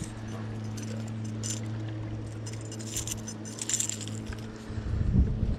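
Metallic clinking and jingling of a topwater rat lure's hooks and hardware as it is handled, heaviest about three to four seconds in, over a steady low hum that stops a little after four seconds. Low knocks near the end.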